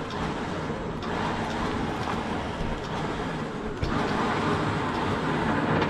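Recovery truck's winch running steadily as it hauls a small car out of a garage towards its loading ramps, slightly louder from about four seconds in.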